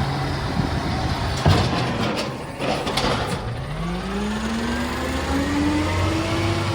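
Recycling truck's engine running, with a few sharp knocks in the first half, then revving up, its pitch rising steadily over the last three seconds.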